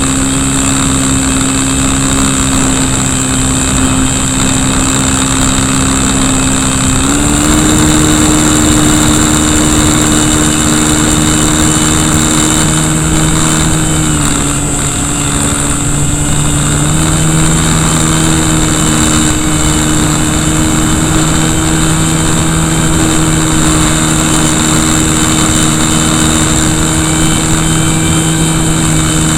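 Brushless electric motor and propeller of a model Cessna running steadily in flight, heard from right beside the motor, over wind noise on the microphone. The pitch steps up about seven seconds in, sags for a few seconds around the middle, then rises again.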